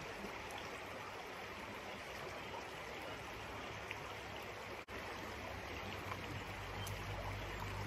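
Creek water running steadily, an even rushing wash. It cuts out for an instant about five seconds in, and a low rumble comes in near the end.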